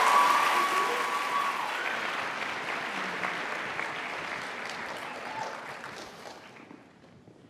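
Audience applause, fading steadily and dying out near the end.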